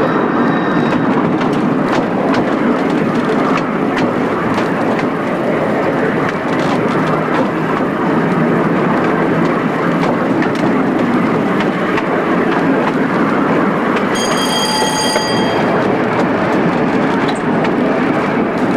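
A 15-inch-gauge one-third-size tram in motion, heard from on board: a steady running rumble of wheels on the rails, with frequent light clicks. About 14 seconds in, a ringing tone sounds for about a second and a half.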